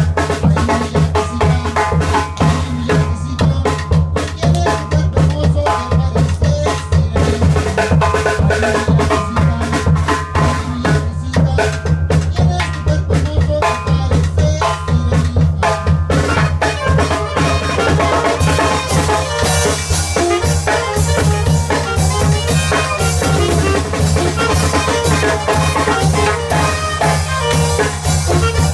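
Guanajuato-style tamborazo band playing an instrumental: two saxophones over a snare drum and a tambora bass drum with a cymbal mounted on top, beating a fast, steady rhythm. The sound grows brighter about halfway through.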